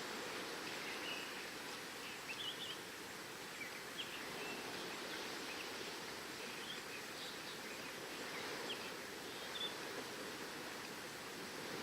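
Steady wash of ocean waves and wind, with short bird chirps scattered throughout.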